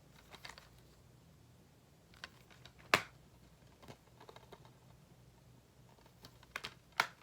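Plastic clicks and light taps from handling a slim DVD case, with a sharp snap about three seconds in and another near the end.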